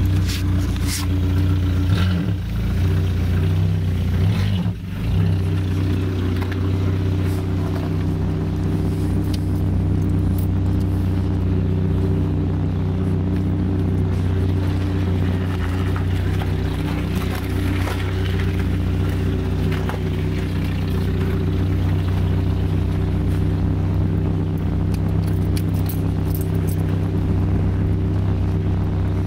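Chevrolet Beretta engine running with its muffler removed, a steady low exhaust drone heard from inside the cabin. It sounds like a four-cylinder with a fart-can muffler.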